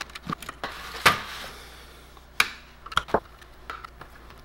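A screwdriver and small screws clicking and knocking against the printer's sheet-metal power-supply chassis. There is a sharp clack about a second in, then a few lighter clicks.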